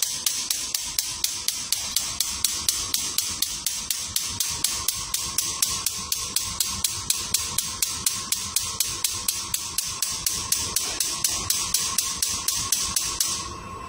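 Gas oven clicking rapidly and evenly, about five clicks a second, with a faint steady hum beneath; the clicking stops shortly before the end.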